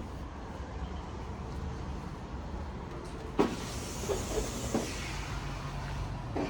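A car going by, its engine and tyre noise swelling about three and a half seconds in over a steady low rumble.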